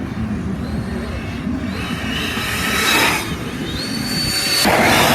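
Electric RC car driving hard: a high brushless-motor whine and a rush of tyre noise, swelling twice as it comes past, the second time louder.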